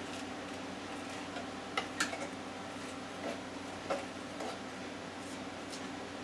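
A utensil tapping and scraping against the inside of a plastic Ninja blender jar a few times as thick cake batter is pushed down off the sides, over a steady low hum.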